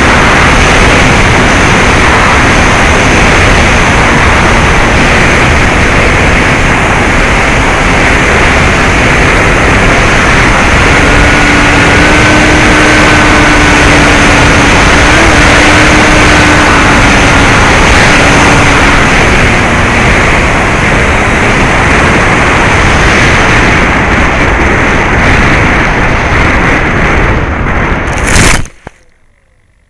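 Rushing wind and the whine of a Bixler 2 RC plane's electric brushless motor and 9x6 propeller (NTM 35-30A 1400kv), heard through the plane's onboard camera microphone in flight. The sound is loud and steady, with a thin steady tone in the middle, then cuts off suddenly near the end.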